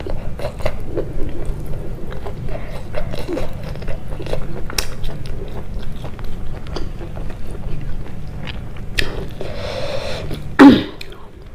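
Close-miked chewing of pork curry and rice, with many small, irregular wet clicks and smacks of the mouth. Near the end comes one brief, louder sound that drops in pitch.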